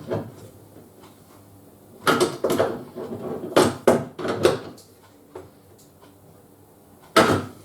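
Knocks and clinks of plumbing fittings and tools being handled while fitting the pipework: a cluster about two seconds in, another about three and a half seconds in, and a single sharp knock near the end.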